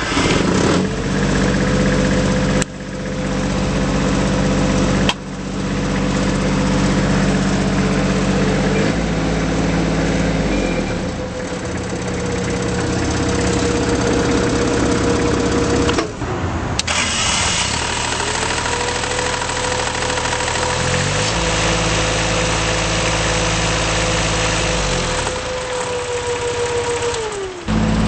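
Bobcat S70 skid steer's small Kubota diesel engine running. It revs up just after the start and holds high revs, drops back about sixteen seconds in, then revs up again and falls away near the end, with a few abrupt breaks.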